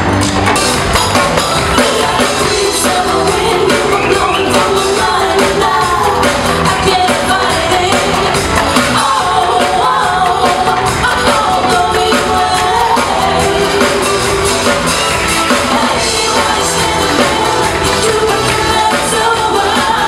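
Live percussion music: tambourines and drums keeping a beat, with singing over it from about a second in.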